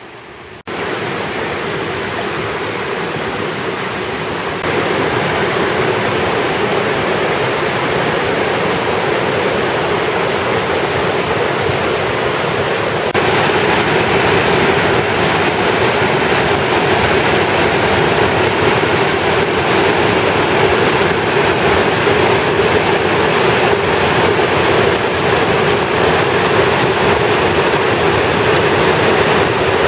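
Waterfall pouring: a steady, loud rush of water with no rhythm. It jumps louder in abrupt steps about a second, five seconds and thirteen seconds in.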